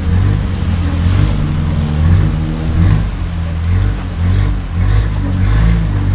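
Long-tail boat's engine running loud under way, its speed rising and falling in steps as the boatman works the throttle.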